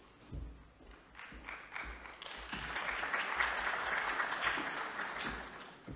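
Audience applauding. The clapping builds up about two seconds in and fades away near the end.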